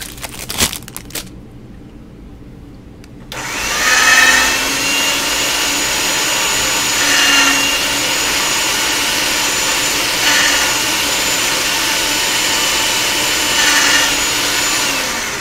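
A small electric motor switches on a few seconds in and runs steadily with a whine, swelling in level about every three seconds, then stops just before the end.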